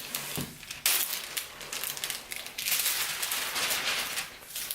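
Toy packaging crinkling and rustling as it is pulled and torn off, a dense crackle that gets louder about a second in.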